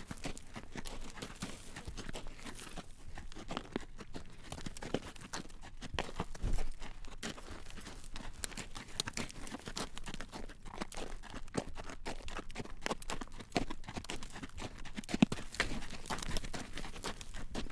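A horse's hooves clip-clopping at a walk on a road as it draws a carriage: a steady run of close-spaced clacks and knocks, with a heavier low thump about six and a half seconds in.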